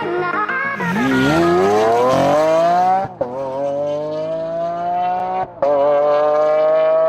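A sport motorcycle engine revving hard under acceleration. Its pitch climbs steeply, drops sharply at upshifts about three and five and a half seconds in, and climbs again after each. Music plays for the first second or so.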